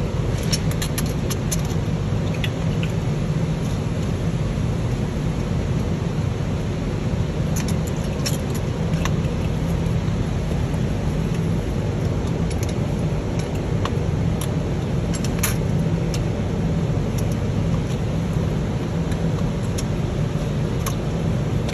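Steady low machine rumble in the background, with scattered light metallic clicks and taps as parts and tools are handled on the engine: a quick cluster at the start, then single clicks now and then.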